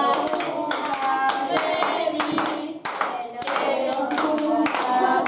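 A small group of people singing together while clapping hands to a steady beat, about three claps a second.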